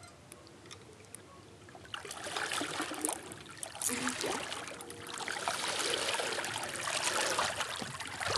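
A hooked smallmouth bass thrashing and splashing at the surface of the river beside a kayak. It starts about two seconds in and gets louder as the fish is drawn close. Before that there is only a faint trickle of river water.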